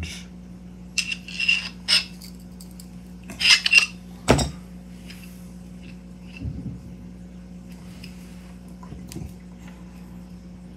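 Small metal parts and tools clinking and tapping as they are handled: a few light clinks early, a quick cluster about three and a half seconds in, then one duller knock, with only faint handling after.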